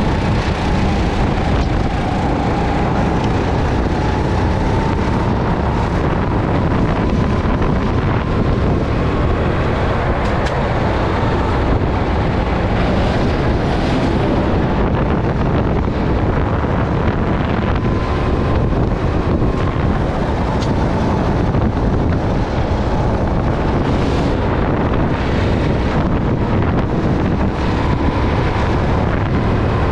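Honda 270 cc single-cylinder four-stroke engine of a Sodi SR4 rental kart running hard at racing speed, its note wavering a little through the corners. Heavy wind buffeting on the onboard microphone.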